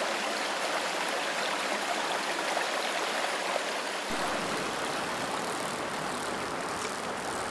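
Mountain stream rushing over rocks: a steady wash of moving water, growing fuller and deeper about four seconds in.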